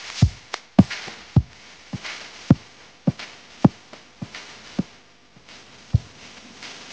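Background music: a steady kick-drum beat of a little under two beats a second over a faint, thin backing.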